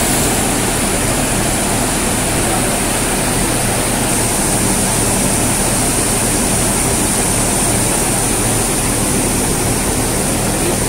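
Polishing lathe running steadily with an aluminum teapot body spinning on it: an even, rushing machine noise over a low hum.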